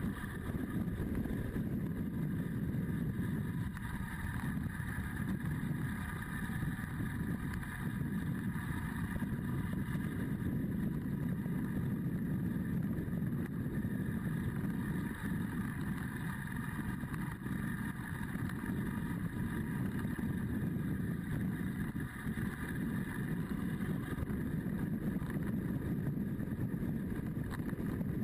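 Adventure motorcycle's engine running steadily at riding speed, with wind buffeting the microphone.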